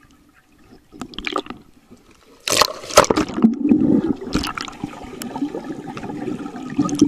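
Muffled water noise heard through a camera held underwater in a swimming pool: bubbling and sloshing as swimmers move past, quiet at first with a few short bursts, then a steadier, louder churning from about two and a half seconds in.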